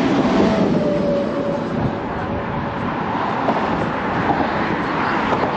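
A vehicle going by: a steady rush of noise with a faint engine tone that falls slightly in pitch.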